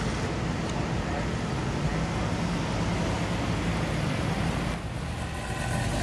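Car engines running with a steady low rumble, the sound of cars cruising and idling at a street car show. The rumble eases a little about five seconds in.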